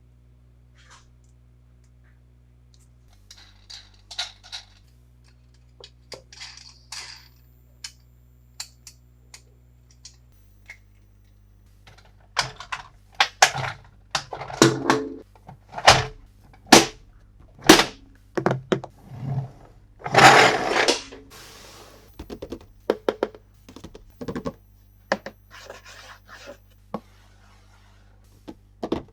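Hands unboxing plastic toys and their packaging. Faint scratches and taps come first, then from about halfway on a quick run of louder knocks, scrapes and clicks of plastic and cardboard, with one longer rustling scrape about two-thirds through.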